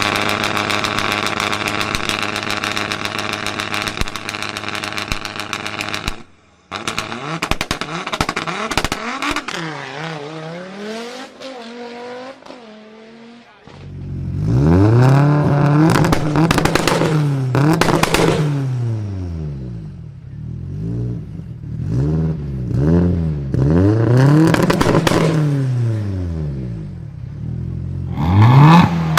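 Supercar engines revving, with exhaust pops and crackles. A high, steady engine note cuts off about six seconds in; then a car accelerates with sharp pops, followed by a string of free revs that rise and fall about every two seconds, crackling as they drop.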